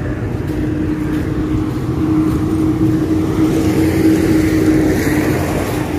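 A motor vehicle engine running with a steady hum over a low rumble, swelling a little louder for a few seconds in the middle.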